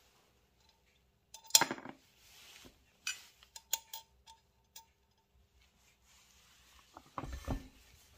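Small metal clinks and taps, a few with a brief ring, as a metal washer is handled against an aluminium scooter crankcase. Near the end comes a heavier, deeper metallic knock as a flat steel plate is moved on the workbench.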